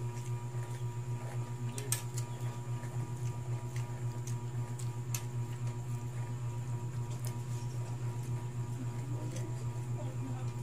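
A steady low hum with a fast pulse runs throughout. Over it come a few faint sharp clicks of a spoon and fork against a plate as the noodles are eaten.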